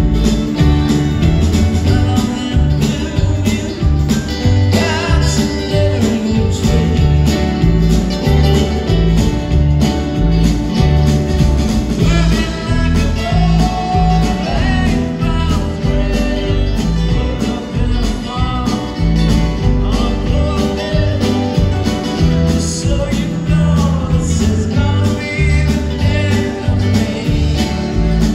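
Live string band playing an upbeat country-bluegrass song on acoustic guitar, mandolin and fiddle over upright bass, keyboard and drums, amplified through a concert PA with a steady beat.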